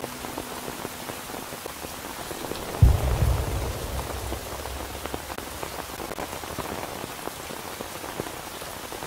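Steady rain with many small drops pattering. About three seconds in comes a sudden deep rumble that fades away over a couple of seconds.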